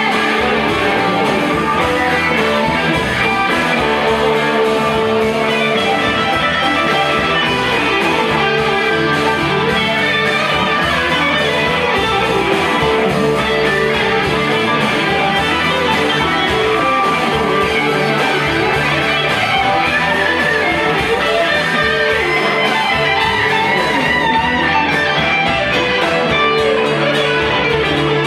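A live band playing, with electric guitars over drums and keyboard, at a steady full level.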